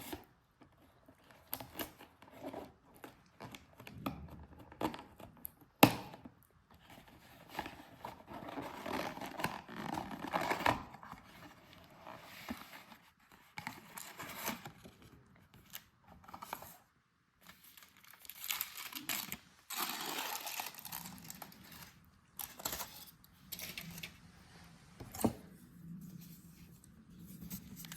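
Kitchen handling sounds: irregular rustling and scraping, with a few sharp knocks.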